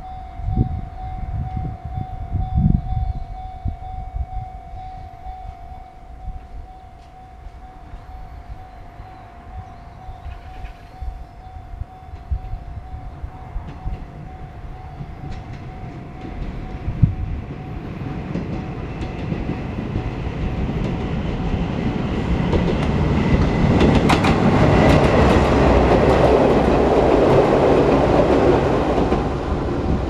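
Level-crossing warning bell ringing with a steady pulsing tone that fades out within the first several seconds, then an Izuhakone Railway Daiyuzan Line electric train approaching and running past, growing louder over the second half, with wheels clicking over the rail joints as it passes.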